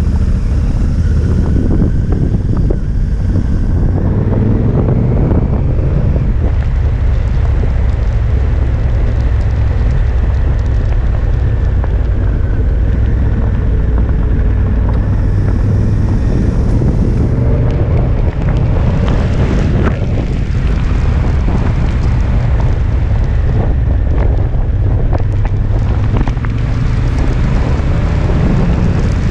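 Wind buffeting the microphone over the running 998 cc parallel-twin engine of a 2016 Honda Africa Twin, its note rising and falling with the throttle, with tyres crunching on gravel.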